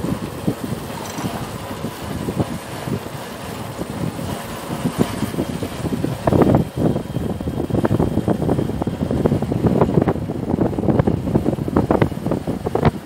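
Two-wheeler riding along with its engine running under wind buffeting the microphone; the buffeting gets heavier and gustier about six seconds in.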